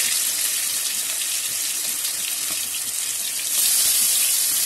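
Marinated chicken pieces frying in hot oil in an aluminium kadai: a steady sizzling hiss with small crackles. The sizzle gets louder about three and a half seconds in, as another piece goes into the oil.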